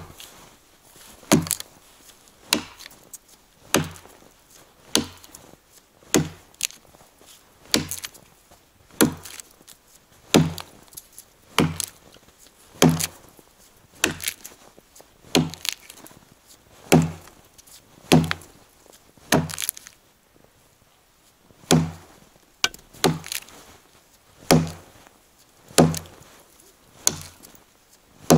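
Forged 'Burunduk' felling axe on a 75 cm handle chopping into the trunk of a dry standing fir: a steady run of sharp blows, about one a second, with a short break about two-thirds of the way through.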